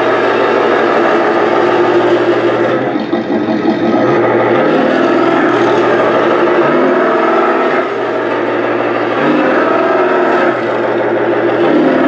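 Tamiya RC Ford F350 Highlift truck driving across a wooden floor: a steady engine-like drone whose pitch steps up and down as it drives.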